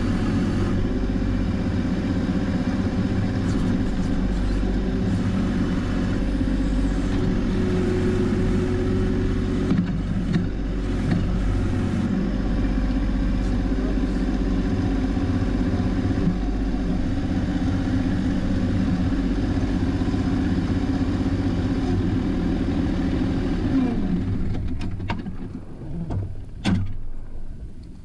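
John Deere 1025R compact tractor's three-cylinder diesel engine running steadily at working speed while powering the 260 backhoe. Near the end the engine is shut off and winds down, stopping work after a hydraulic hose has ruptured, followed by a few sharp knocks.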